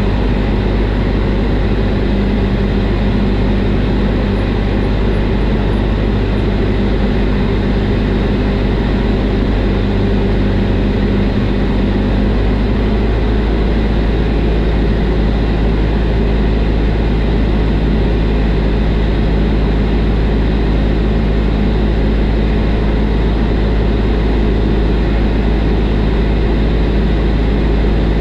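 Single-engine light aircraft's piston engine and propeller droning steadily in cruise, heard from inside the cockpit. The pitch drops slightly about twelve seconds in, as with a small power reduction.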